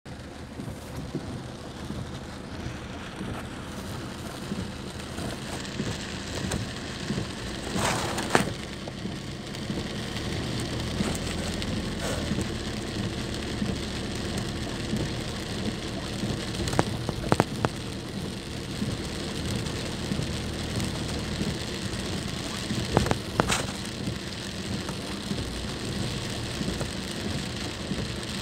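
Road noise inside a moving car on a wet road: a steady hiss with a low hum underneath, broken by a few short knocks.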